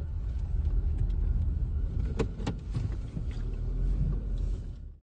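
Steady low vehicle rumble with a couple of sharp clicks a little past two seconds in; the sound cuts off abruptly near the end.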